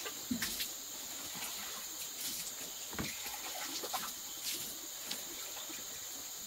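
Eating by hand: scattered short wet smacks and clicks of chewing and fingers picking food from plates, over a steady high insect drone.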